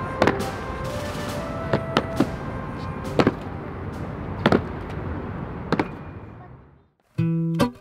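Ceremonial guard's boots stamping on stone paving as they goose-step, sharp single strikes about a second or so apart over steady background noise, fading out about six seconds in. Acoustic guitar music comes in at the very end.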